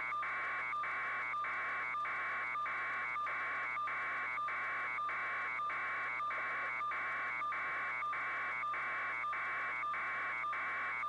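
A steady electronic buzz pulsing about one and a half times a second, each pulse cut by a very short gap, like signal interference on the audio track.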